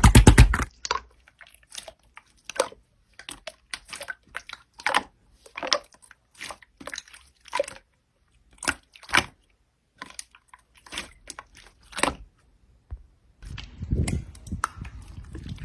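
Slime being pressed and stretched by hand, giving irregular sharp pops and crackles. Near the end it changes to a denser, softer squelching.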